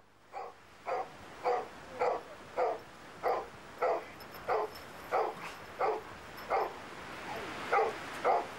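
A dog barking over and over at a steady pace, about one and a half barks a second, each bark dropping in pitch.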